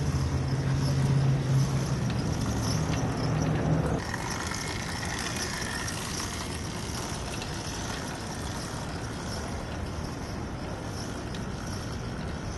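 A steady low engine hum for about the first four seconds. After that, a quieter outdoor hiss with a faint, wavering high whine.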